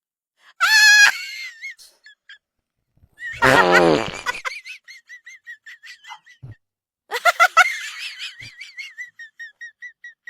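Fake fart sound effects. A loud high squeaky one comes about half a second in and a lower buzzing one around three and a half seconds. Then come runs of short squeaky pulses, several a second.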